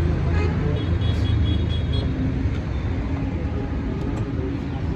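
Steady low rumble of a motor vehicle on the road, with traffic noise.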